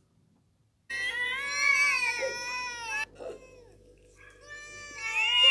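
Cats yowling in a standoff, a sign of aggression: one long wavering yowl, a short pause, then a second, louder yowl starting near the end.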